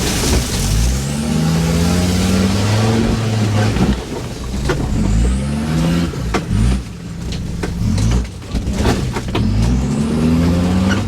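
An off-road 4x4's engine revved hard over and over, its pitch rising three times as the vehicle pushes under load, with scattered knocks and clunks between the revs.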